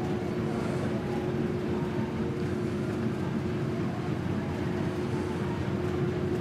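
Steady low droning hum with a faint held tone: the background hum of an airport terminal's interior.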